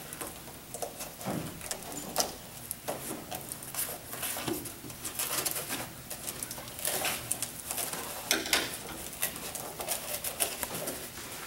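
Irregular crinkling, rustling and light tapping as hands work on the taped blade reel of a homemade push lawn mower, repairing it after a wheel came off.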